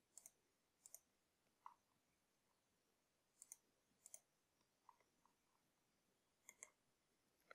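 Faint computer mouse clicks over near silence, a few of them in quick pairs.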